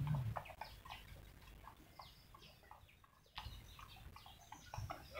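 Faint, scattered short chirping calls, several each second, with a brief low sound right at the start.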